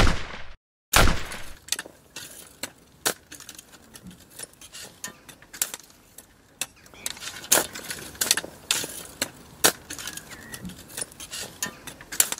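Garden tools digging into crumbly soil: two heavy strikes about a second apart at the start, then a long run of small crunches and scrapes as a trowel and hands work the earth.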